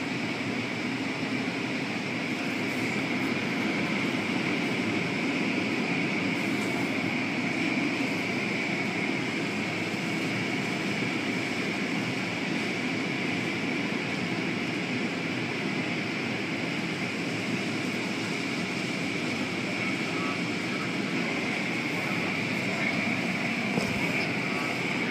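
Automatic car wash running: rotating cloth brushes and water spray over a vehicle, with the tunnel machinery making a steady rushing, whirring noise.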